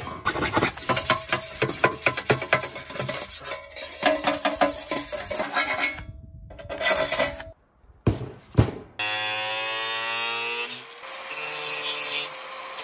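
Irregular scraping and rasping on a stainless steel pan for the first several seconds, then a knock, and about nine seconds in an electric angle grinder starts up and runs with a steady high whine.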